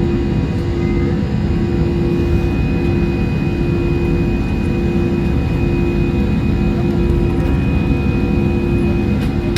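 Cabin noise of an Airbus A320-200 during takeoff, heard from inside: its CFM56 jet engines and the airflow run steadily, with a constant low hum and a thin high whine over a dense noise.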